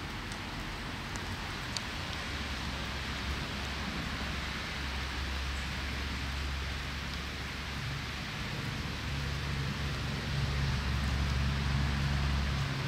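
Steady rain hiss with a few faint drip ticks early on, over a low steady hum that grows louder in the second half.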